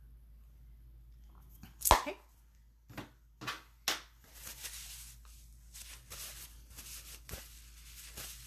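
Makeup products being handled: one sharp knock about two seconds in, three lighter clicks over the next two seconds, then soft rustling and small handling noises.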